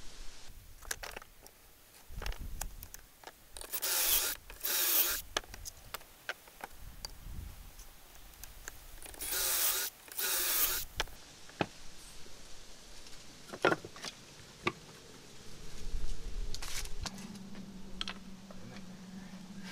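Woodworking on a bench: four short rasping bursts in two pairs, about six seconds apart, with scattered light knocks of wood between them. Near the end a steady low hum starts.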